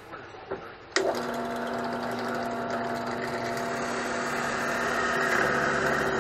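Bench drill press motor switched on about a second in, running with a steady hum while its bit bores into a 2x4. The sound grows slightly louder as the bit cuts in.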